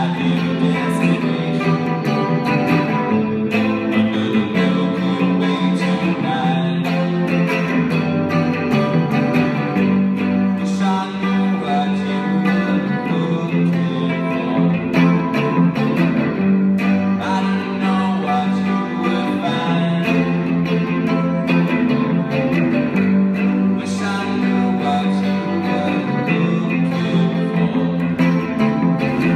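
A rock song played live on electric guitar and electric bass, with a man singing over it.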